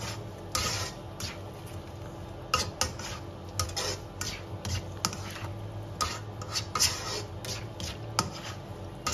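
Black slotted spatula scraping and tapping against a non-stick wok as chicken, leeks and bell pepper are stir-fried and turned over, in irregular strokes.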